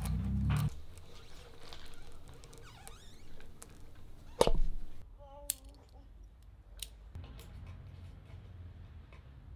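A power drill driving a screw through a car tire's tread runs briefly and stops under a second in. Then come quiet tool-handling sounds, with one sharp knock about four and a half seconds in.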